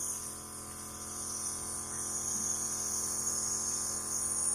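Compressor nebulizer running with a steady electric hum and a thin high hiss, delivering an inhalation.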